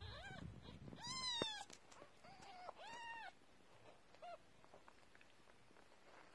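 Newborn kittens mewing: about six short, high-pitched mews in the first four and a half seconds, the loudest about a second in.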